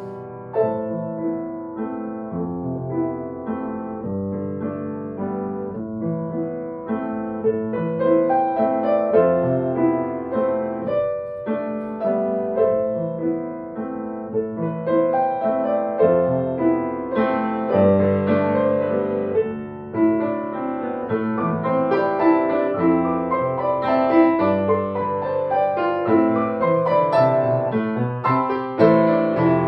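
Upright piano played four-hands, a continuous flowing piano duet with many overlapping chords and runs, growing somewhat fuller and louder after the first several seconds.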